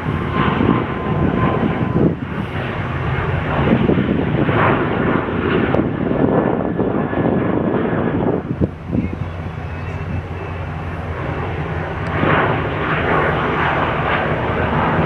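Airliner engines running loud: a dense rumbling roar with a steady low hum under it, easing a little in the middle and swelling again near the end.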